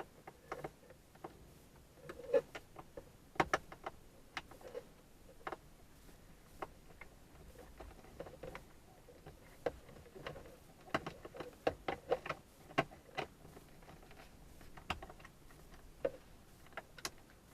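A short screwdriver working a screw out of a plastic dash trim panel: irregular sharp clicks and light knocks of tool against screw and plastic, busiest in the second half.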